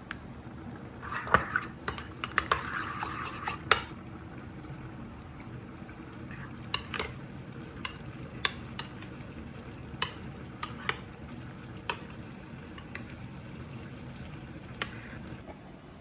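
Pot of chicken and basmati rice on the stove handled with a utensil: a few knocks and a scraping, stirring noise in the first four seconds, then scattered sharp clicks over a steady low background noise, as the cooking water is almost boiled off.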